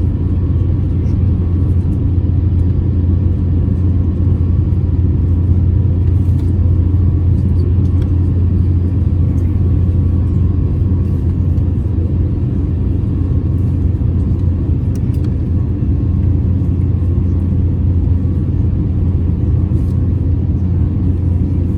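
Steady low rumble of a jet airliner's engines and airflow heard from inside the passenger cabin, even throughout with no rise or fall.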